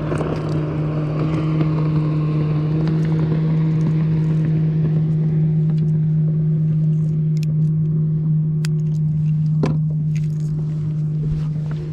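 Boat motor running with a steady low hum, with a couple of sharp clicks near the end.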